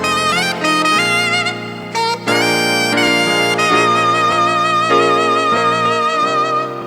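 Saxophone playing a slow melody with vibrato over sustained backing chords, holding one long note through the middle.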